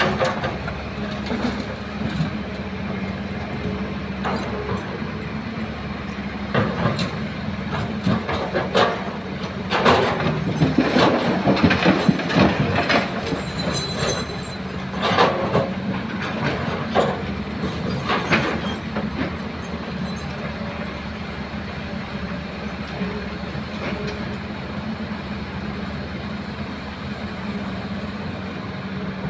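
Excavator's diesel engine running steadily, with a run of metal clanks and scraping in the middle stretch as the bucket digs and loads earth into a dump truck.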